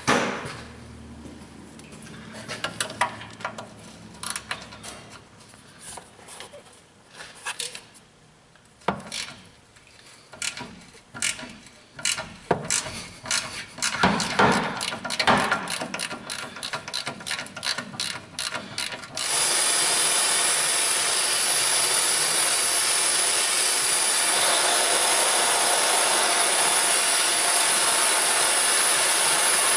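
Ratchet wrench clicking in irregular runs on exhaust manifold bolts, with metal scrapes; the clicking gets quicker and denser a little past a third of the way in. About two-thirds of the way through, a steady loud hiss starts and holds on.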